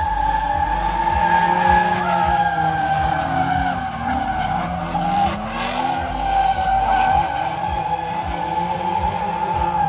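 Two drift cars in a tandem slide: a sustained, steady high-pitched tyre squeal over engines revving up and down as the drivers work the throttle.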